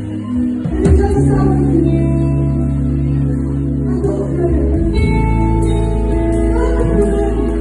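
Worship music with singing over long held chords and a deep bass.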